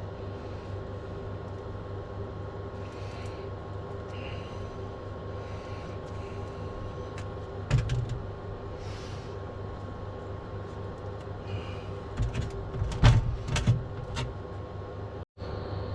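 Steady background hum, with a few clicks and metal knocks from parts being handled, the loudest cluster from about twelve to fourteen seconds in.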